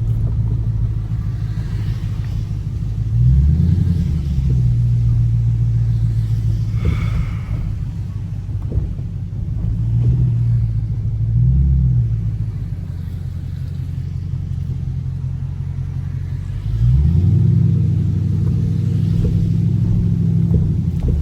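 Dodge Scat Pack's 6.4-litre HEMI V8 rumbling at low speed, its pitch rising under acceleration about three seconds in, again around ten seconds, and near the end, where it is loudest.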